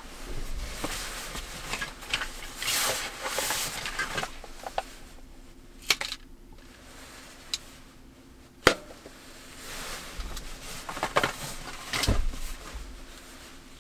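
Fabric rustling as a cloth bag is handled and packed, with a few sharp knocks and clicks in between; the loudest knock comes a little past the middle.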